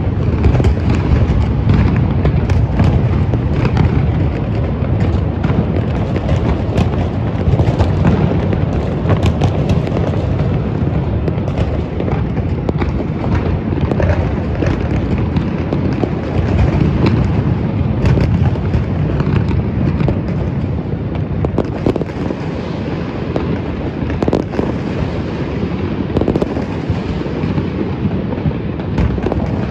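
Continuous barrage of fireworks and firecrackers: a constant deep rumble of overlapping booms with many sharp bangs and crackles over it, never letting up.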